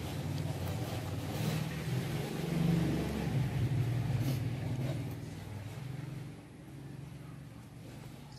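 An engine running steadily, swelling to its loudest about three seconds in and fading after about six seconds.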